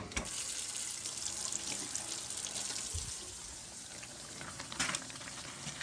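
Kitchen tap running into a stainless steel sink, a steady splashing stream, with a short knock near the end.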